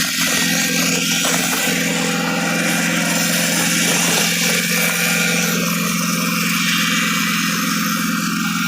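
Automatic heavy rock-drill machine and its air compressor running steadily: a constant engine hum under a loud, even hiss.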